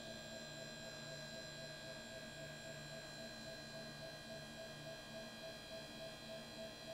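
Electric hydraulic power unit of a Vevor 7,000 lb portable car lift running steadily: a motor-pump hum with a higher whine, pumping fluid to raise the lift under a car.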